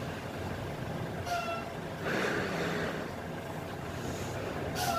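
Dump truck's engine running steadily with the bed raised after tipping out a load of sand. Two brief high chirps cut through, about a second in and near the end.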